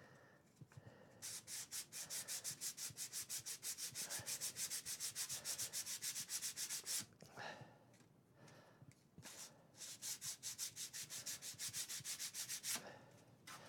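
Sandpaper on a cork sanding block rubbed in quick back-and-forth strokes, about eight a second, against a small wooden model-boat wheelhouse, smoothing its filled corners. Two bouts of sanding with a short pause about halfway through.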